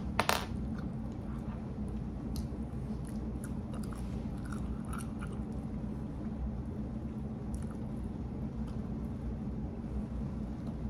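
Close-up mouth sounds of a person chewing food, with scattered small clicks and one sharp click just after the start, over a steady low hum.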